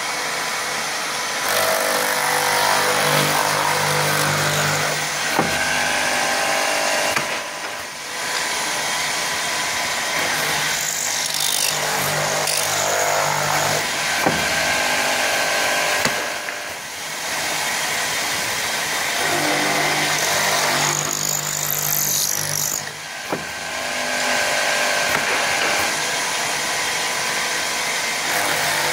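Twin-spindle woodworking drilling machine running, its two drill bits boring rows of holes in wooden chair parts with a steady motor hum and the hiss of cutting wood. Brief lulls with sharp clicks come every few seconds, and there is a short high whine twice.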